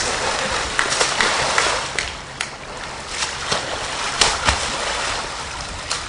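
A person in a full-body costume thrashing and wading through a swimming pool: a constant rush of churned water broken by many sharp slaps and splashes, the loudest about four seconds in.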